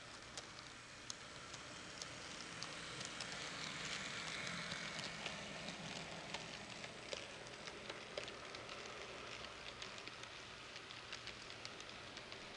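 Model freight train rolling past on its track: a steady rushing hiss of the running train scattered with irregular sharp clicks from the wheels on the rails, loudest around four to five seconds in as the locomotives go by, then the piggyback flatcars clicking past.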